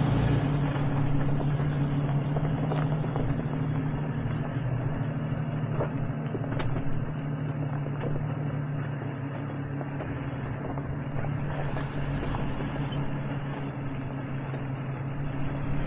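Jeep engine running steadily at low speed, a low even hum, with a few light knocks and clicks scattered through it.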